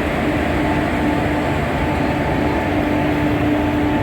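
Steady rumble and hiss of an express train hauled by a WAP-4 electric locomotive, with a faint steady hum running under it.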